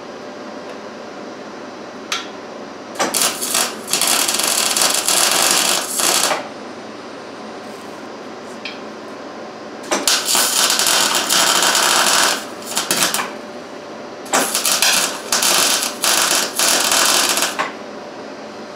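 Welding arc crackling in three runs of about three seconds each, laying beads on painted steel. The paint is not burned off beforehand, and the welder says he is not liking it.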